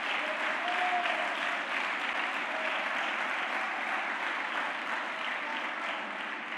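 Church congregation applauding steadily, with a few faint voices calling out over it; the clapping dies down near the end.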